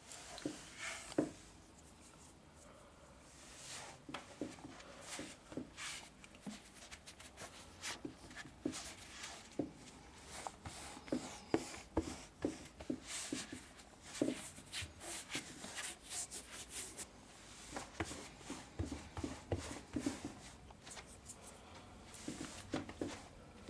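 Bare feet pressing, shuffling and stepping in a thick layer of flour on a rug: irregular soft crunching and scuffing sounds.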